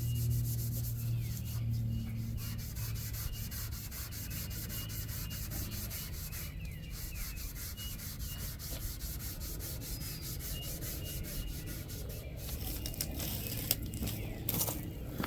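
Steady, rapid abrasive scrubbing, like sanding against a hard surface, made of many quick strokes. A low hum fades out in the first second.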